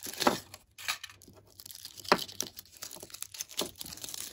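Foil wrapper crinkling and crackling as it is unwrapped by hand from a bath bomb, in irregular crackles with a few louder ones.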